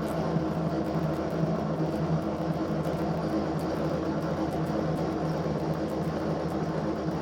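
A steady machine hum and whir, with a few constant low tones and no change in pitch or level.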